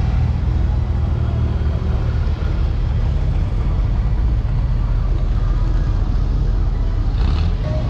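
Steady low rumble of motor vehicle engines running.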